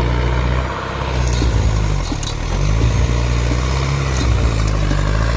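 LKT-81 skidder's diesel engine running under load, its speed rising and falling, with a few knocks from the machine working.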